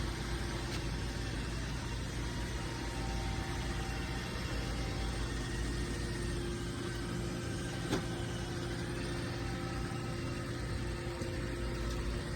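Roomba robot vacuum running: a steady motor hum with a low rumble, and one short knock about eight seconds in.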